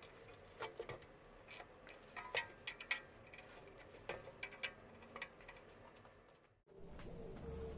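Irregular light clicks and taps of metal tools and parts being handled during a washing-machine repair. They cut off suddenly about six and a half seconds in, leaving a faint steady background.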